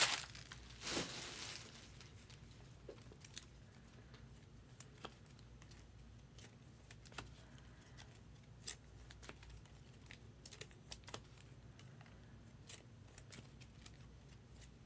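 Faint handling of trading cards and plastic card cases: a short rustle about a second in, then scattered light clicks and taps.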